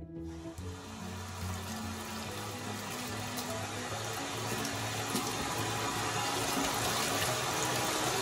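Kitchen tap running into a stainless steel sink as hands splash and rinse soap suds down the drain. The water starts just after the beginning and grows slowly louder, over soft background music.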